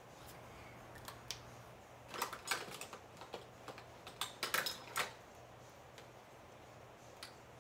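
Quick runs of light crackles and small snaps from Pringles crisps being handled and laid on a face: a few clicks, a dense cluster a couple of seconds in, another cluster around the fifth second, then one faint click near the end.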